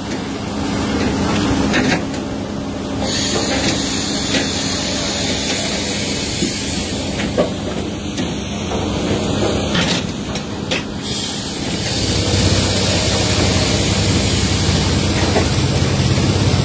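SAMI Autochopper firewood processor running, a steady mechanical noise from its drive and log infeed conveyor with a constant hum. A few short knocks come through, and a deeper hum sets in and the machine grows louder about two-thirds of the way through.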